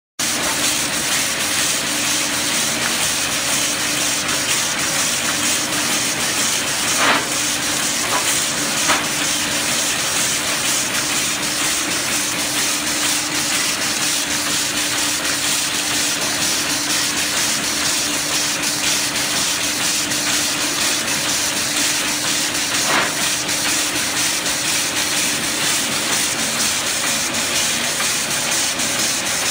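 Wooden round-rod sanding and double-end cutting machine running: a steady abrasive hiss over a constant electric-motor hum, with a few sharp knocks as rods pass through.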